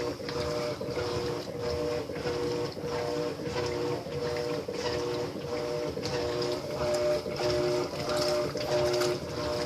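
Electrolux Essential Care LES13 washing machine running a wash cycle: the motor hums in short repeated pulses that switch pitch about every half second, over a steady rush of water and clothes churning in the tub.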